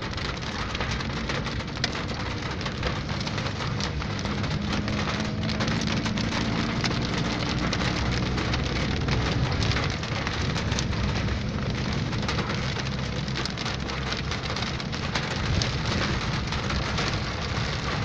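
Rain falling on a car's roof and windscreen, heard from inside the moving car: a steady hiss of fine drop hits over a low hum of engine and tyres on the wet road.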